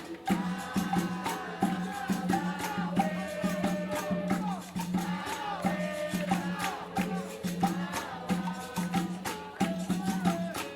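Capoeira music: a berimbau and caxixi rattle with hand percussion keeping a steady rhythm, and voices singing over them.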